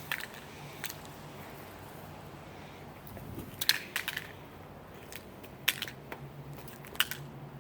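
A plastic Rubik's cube being whipped with a handheld object: about half a dozen sharp clicking hits at uneven intervals, which fail to break it.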